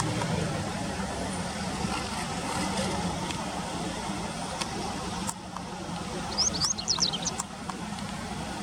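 A bird giving a quick run of short, sharp, high chirps about six and a half seconds in, over a steady low background rumble.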